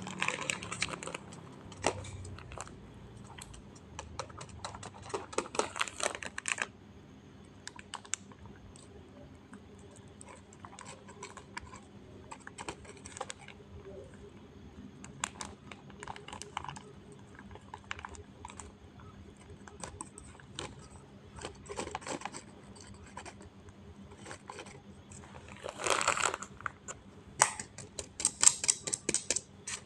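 Flour being packed into a rubber balloon by hand: irregular small clicks and taps with crinkling rustles, in louder bursts at the start, about five seconds in and near the end.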